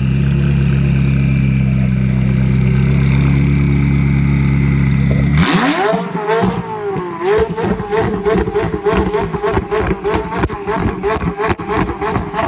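McLaren sports car's twin-turbo V8, heard at the exhaust, held at steady revs. About five and a half seconds in, the sound changes abruptly to a rev that rises and falls, then rapid repeated throttle blips, about four a second.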